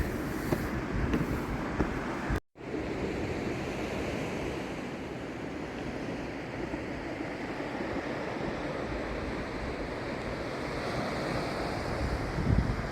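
Ocean surf washing steadily onto the shore, with wind buffeting the microphone. The sound drops out for a moment about two and a half seconds in.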